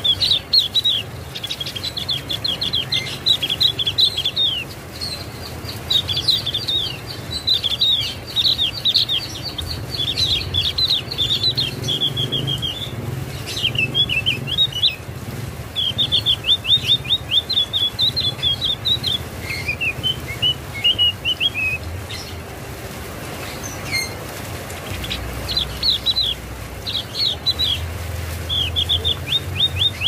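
Javan grey-throated white-eye (opior jawa) singing: repeated phrases of quick, high, downward-slurred notes, each phrase lasting one to a few seconds with short pauses between, over a low background rumble.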